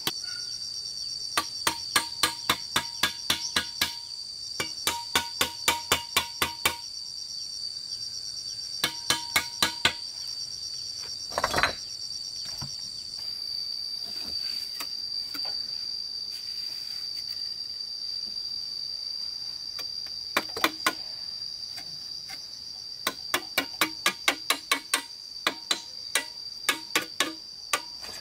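Quick runs of sharp tool strikes, about four a second, stopping and starting, over a steady high insect trill.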